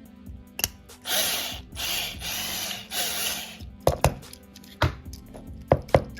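Small electric drill boring out the rivet of a die-cast toy car, run in about four short bursts. Several sharp clicks and knocks follow, from the little metal and plastic parts being handled.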